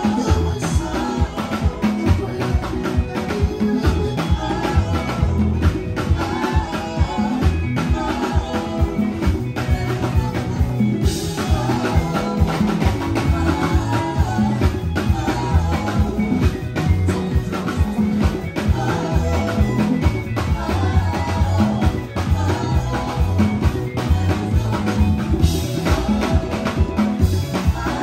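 Live band playing an upbeat African praise song: a five-string Fender electric bass carries a busy, prominent bass line over drums and congas, with keyboard.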